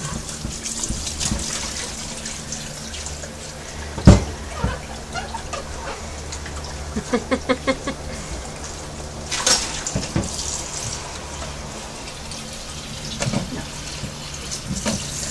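Kitchen tap running into a stainless steel sink while a plastic bowl is rinsed and scrubbed by hand. A sharp knock about four seconds in is the loudest sound, and a quick run of short squeaks comes near the middle.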